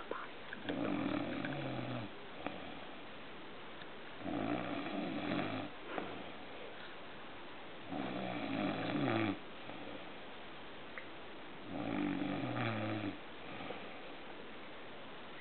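A man snoring in his sleep: four snores about four seconds apart, each about a second and a half long.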